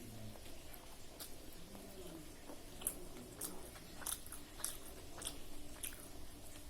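A person chewing and biting food up close, with irregular moist clicks and smacks from the mouth.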